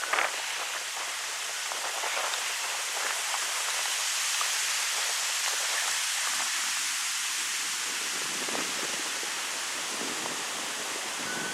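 Wind blowing through birch trees, the leaves rustling in a steady hiss that swells a little in the middle.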